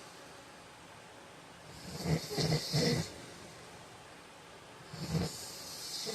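A man snoring in his sleep: two snores about three seconds apart, the first broken into three or four quick pulses, each with a hissing breath.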